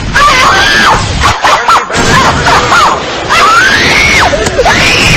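A high-pitched voice screaming and wailing, each cry sliding up and breaking down again, over loud distorted noise: a meme scream sound effect.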